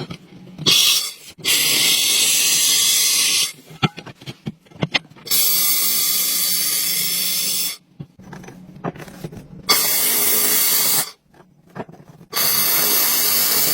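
Welding arc hissing and crackling in five bursts of about one to two and a half seconds each. Short gaps between the bursts hold small clicks and taps.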